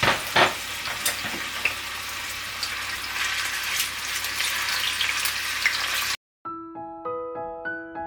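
Ajillo sizzling and bubbling in olive oil in a cast-iron skillet, with a couple of sharp pops near the start. The sizzle cuts off abruptly about six seconds in, and gentle piano music begins.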